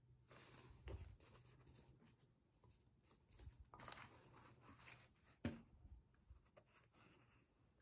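Faint rustling and brushing of a cotton baseball cap being handled and turned over, with one short, sharp knock about five and a half seconds in.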